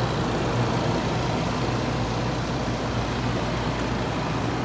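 2019 Range Rover Autobiography engine idling: a steady, even low hum.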